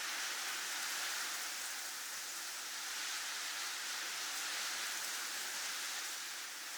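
Snowstorm wind blowing as a steady, even hiss, without distinct gusts.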